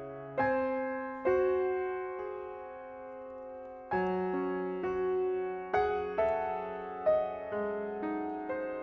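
Background music: slow, gentle piano, notes and chords struck every second or so and left to ring.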